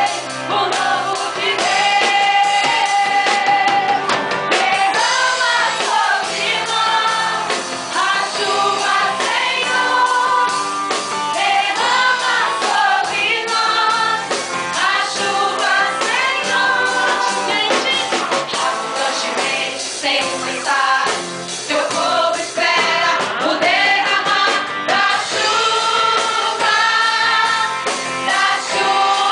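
Christian worship song sung by a group of voices over instrumental backing.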